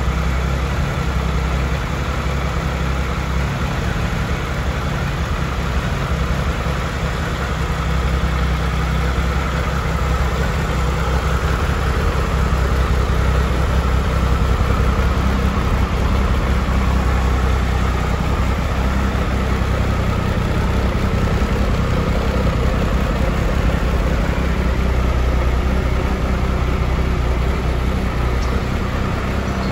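Triumph Tiger 1200 XRT's inline three-cylinder engine idling steadily.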